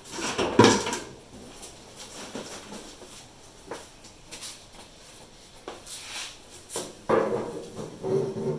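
Knocks and clatter of tools and containers being handled, with a loud clatter about half a second in, scattered small knocks after it, and another cluster near the end.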